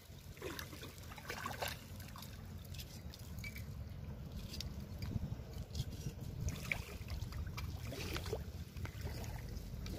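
Shallow seawater trickling and lapping, over a steady low rumble, with scattered short clicks and scrapes from the knife work on the fish.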